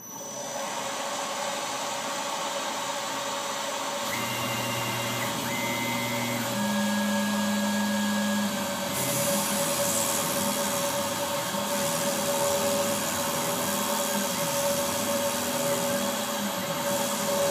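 Tormach PCNC 770 CNC milling machine running, with a steady spindle whine. From about four seconds in, the axis motors whine at shifting pitches as the head moves over the carbon fiber sheet. A louder hiss joins about halfway.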